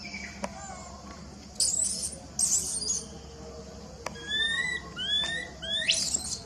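Baby macaques squeaking: a run of short calls that each rise in pitch, the loudest near the end. Two brief hissing bursts of noise come about one and a half and two and a half seconds in.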